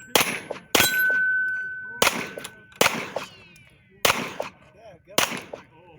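Six pistol shots fired at an uneven pace, about a second apart. A steady metallic ring hangs between them, typical of hit steel targets.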